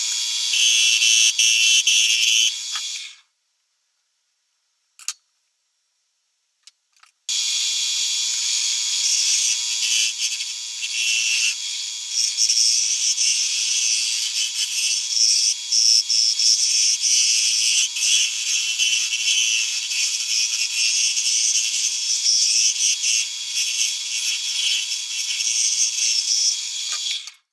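Central Machinery 10x18 mini wood lathe running with a steady thin whine while a hand-held turning chisel cuts the spinning wooden spindle, a continuous hissing scrape of shavings. The sound breaks off for about four seconds near the start, with only a couple of clicks, then the cutting runs on steadily.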